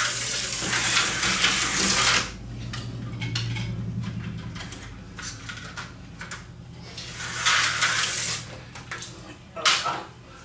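Tyco slot car running on its plastic track: a buzzing, rattling run of about two seconds, a low steady hum, then a second shorter run about seven seconds in, and a sharp clatter near the end.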